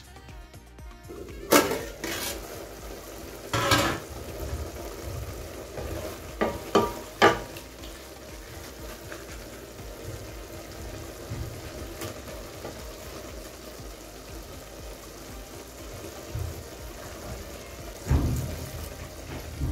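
A wooden spatula stirring greens in a stainless steel pot over a low, steady sizzle, with a few sharp knocks of utensil against pot in the first several seconds. Near the end, milk is poured into the pot.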